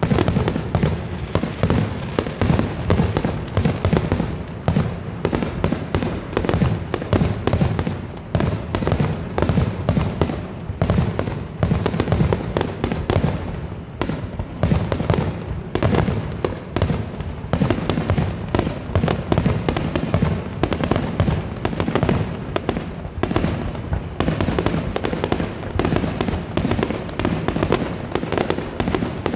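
Aerial fireworks shells bursting in a rapid, nearly continuous barrage, bangs following each other many times a second.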